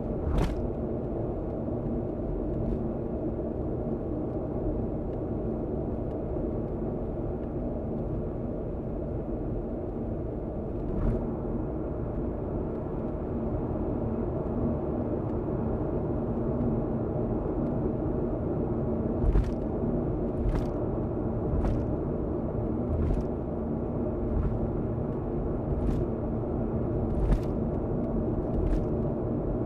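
Road noise of a car driving at speed on an expressway, recorded from inside by a dashboard camera: a steady tyre and engine rumble with a faint hum. Short sharp knocks punctuate it, once near the start, once around the middle, then about every second or so in the last third.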